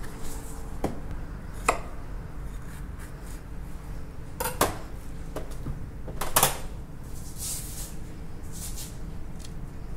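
Kitchen clatter: a knife and utensils knocking and clinking, with a few separate sharp knocks and a louder cluster about six seconds in.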